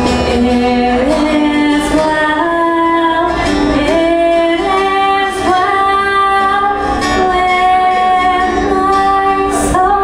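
A woman singing a slow melody of long held notes to an acoustic guitar.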